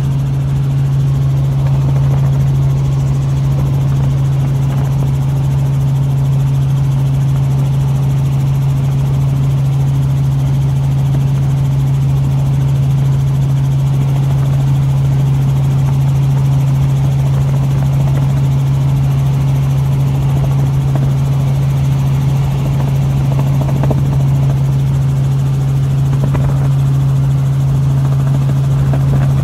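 Steady rotor hum from the aircraft carrying the camera: one strong low, unchanging drone over a rushing noise, with no change in pitch.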